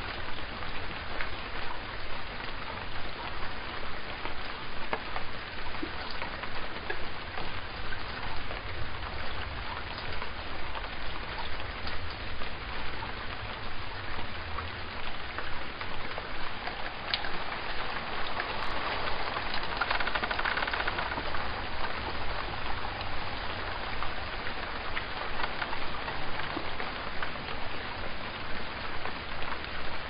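Steady rain falling: an even hiss with many fine drop ticks and a low rumble, swelling a little about twenty seconds in.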